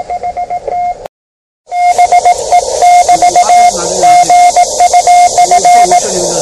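Morse code (CW) from a Yaesu portable QRP transceiver: a single mid-pitched beep keyed on and off in dots and dashes over a hiss of band noise, cutting out briefly about a second in.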